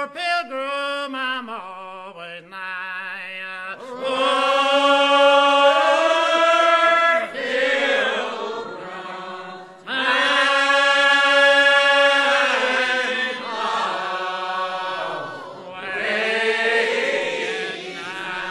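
Congregational hymn singing in call-and-response style: a leader's single wavering voice sings a phrase, then the congregation answers with slow, long-held notes, twice more through the stretch.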